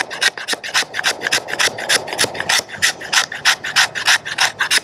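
Sharp spine of a Battle Horse Knives Tree Frog folding knife scraping a red cedar stick, raising fine fuzz for tinder. Quick, even rasping strokes, about six a second.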